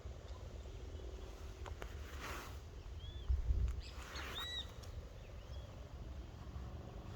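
Birds calling outdoors with short, arched chirps, several in a row, over a steady low rumble. Two brief hissy swishes come in, and a low thump sounds a little after three seconds.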